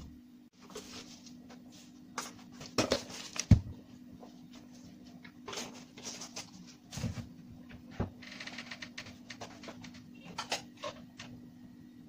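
Cooking utensils being handled: a spoon clinking, knocking and scraping against a pot and bowl in irregular short strokes, with one sharper knock about three and a half seconds in, over a faint steady hum.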